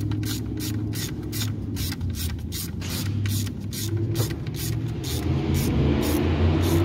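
Hand ratchet clicking as fasteners on the engine are run down, an even patter of about four clicks a second that thins out and stops around five seconds in, over a steady low hum.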